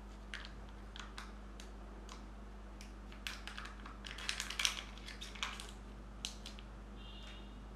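Plastic Kinder Joy egg handled and its peel-off seal pulled back: scattered clicks, then a dense run of crinkling and crackling a few seconds in.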